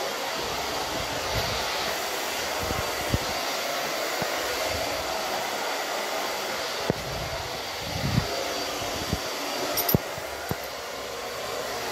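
Steady whooshing of an air blower or fan running continuously, with a few light knocks and clicks from handling over it.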